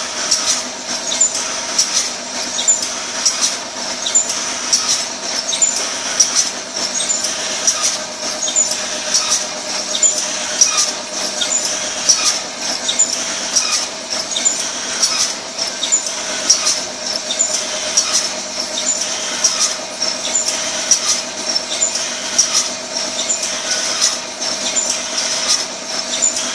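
Automatic tissue-sachet packing machine running, with a steady hum under a regular, fast-repeating cycle of clicks and hissing as it seals and cuts the sachets.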